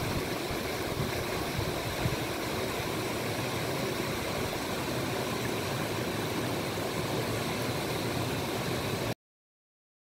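A shallow rocky creek rushing over stone slabs, a steady wash of water noise that cuts off suddenly about nine seconds in.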